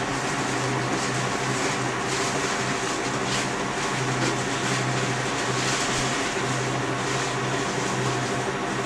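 Steady low hum with an even hiss over it: indoor room noise of a running motor such as a fan, with no speech.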